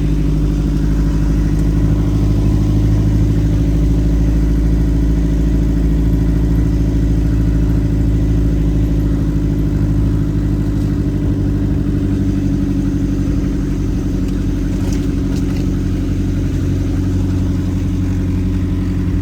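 Off-road vehicle's engine running steadily while driving, a low, even hum that holds roughly constant in pitch.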